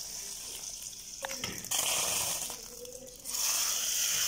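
Hot oil tempering with mustard seeds, curry leaves and dried red chillies sizzling in boiling sambar, a steady hiss that drops away and comes back twice. About a second in, a steel ladle clinks and sloshes through the sambar.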